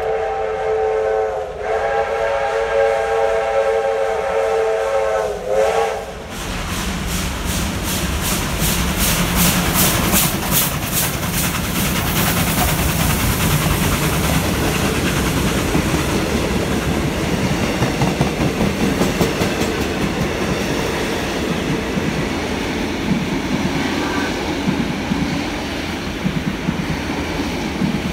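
Steam locomotive's chime whistle sounding several notes at once in two long blasts. It then runs past at speed with rapid exhaust beats, followed by its passenger carriages rolling through with steady clickety-clack over the rails.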